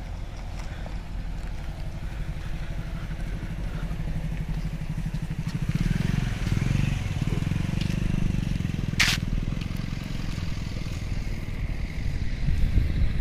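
Mahindra Thar 4x4's engine running under load as it crawls over loose dirt mounds, its rumble swelling about five seconds in and again near the end. A single sharp click about nine seconds in.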